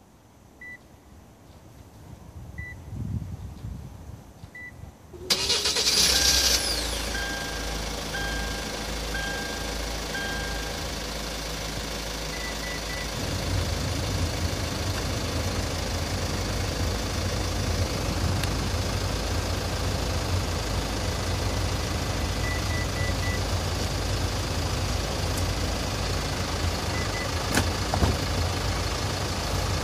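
Hyundai Tucson ix engine started by remote: three short beeps about two seconds apart, then about five seconds in the engine cranks, catches and settles into a steady idle. A run of short beeps follows just after it starts, and a few more beeps come later.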